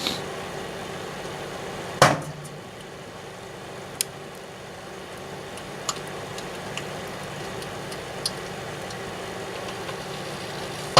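Daewoo microwave oven running with a steady hum while a GE alarm clock cooks inside, its electronics popping as the capacitors fail: a loud sharp crack about two seconds in, a few small ticks, and another loud crack near the end.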